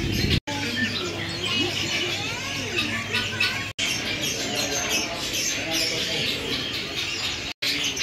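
Many caged birds chirping, calling and squawking together, a dense overlapping chorus of short high calls. The sound cuts out for an instant three times.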